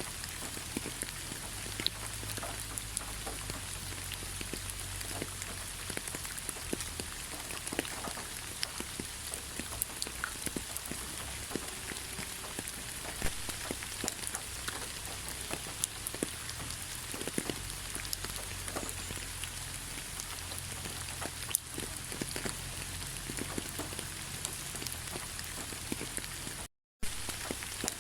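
Steady rain falling, with many individual drops ticking close by. The sound cuts out for a split second near the end.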